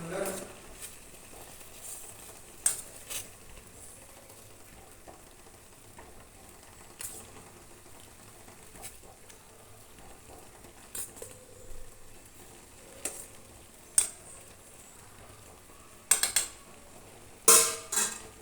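Pot of moringa leaf soup heating on the stove as it comes to the boil: a faint steady hiss with scattered sharp pops and clicks, and a few louder crackling bursts near the end.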